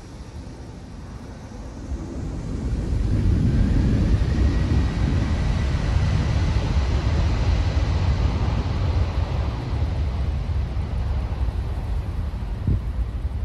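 Twin-engine jet airliner's engines spooling up to takeoff power as it begins its takeoff roll away from the listener. A faint rising whine comes in about two seconds in, over a loud, deep rumble of jet blast that then holds steady.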